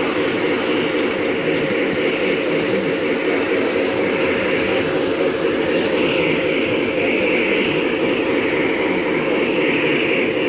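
Large-scale model steam locomotive running along model railway track close up: a steady rumbling whir of its motor and wheels on the rails.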